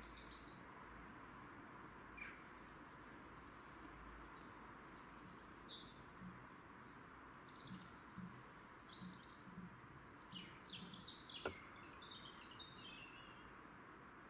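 Small birds chirping and singing over a faint steady outdoor hiss, with short high notes and quick falling trills throughout and one sharp click a little past the middle.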